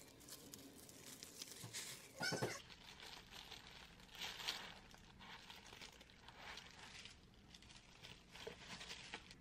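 Thin plastic disposable gloves and a plastic bag crinkling and rustling as gloved hands press and fold a lettuce-filled sub sandwich closed. A short squeak about two seconds in is the loudest sound.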